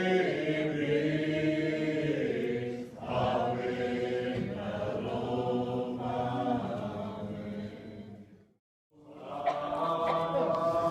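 Congregation singing a hymn in the Muscogee (Creek) language, in slow, held notes. The singing fades out briefly near the end and then starts again.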